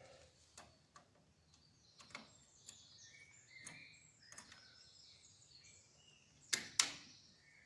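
Small birds chirping in the background while chain joiners and split pins are handled, giving faint scattered clicks; two sharp clicks stand out about six and a half seconds in.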